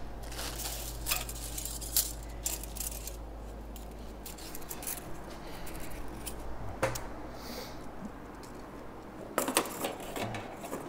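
Metal worm-gear hose clamp clinking and rattling in scattered light clicks as it is handled and slipped onto an intake hose elbow, over a steady low hum.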